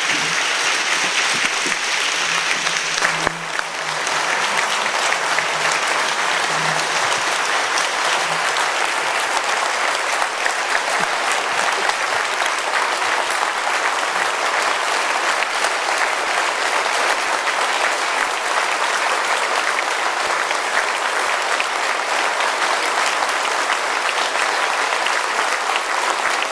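Audience applauding, a sustained round of clapping that dips briefly about three seconds in and then carries on at a steady level.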